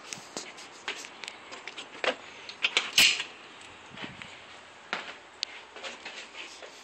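Scattered clicks, knocks and light creaks from footsteps on a wooden deck and handling of the camera, the loudest knock about three seconds in.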